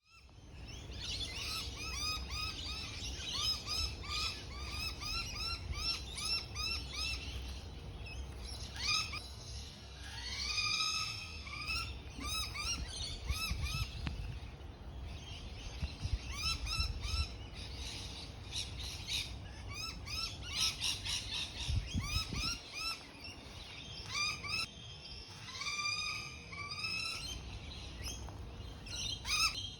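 Birds calling in long runs of short, rising, hooked notes, several a second, repeated almost without a break, over a low rumble.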